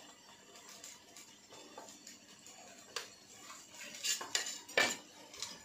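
Clinks and scrapes of stainless-steel kitchenware as a steel tray holding paneer is handled: one sharp click about three seconds in, then a quick cluster of louder clinks near the end.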